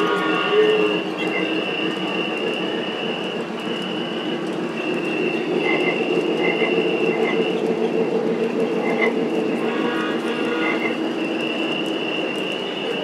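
Freight cars of a model train rolling past on the layout track, a steady rumble of wheels on rail with a few faint clicks, over a steady high whine. A short pitched tone fades out in the first second.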